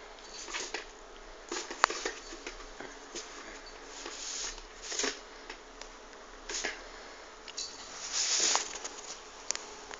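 A cat clawing and batting a paper-wrapped cardboard tube on a tile floor: irregular scratching, rustling and knocks of the tube, with a sharp tap about two seconds in and a louder scraping rustle near the end.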